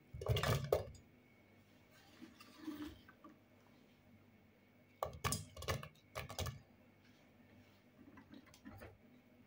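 Diced apple pieces dropped by hand into a stainless steel saucepan, landing on the fruit already in it and against the metal in a few short clusters of soft knocks and clicks: at the start, in the middle and near the end.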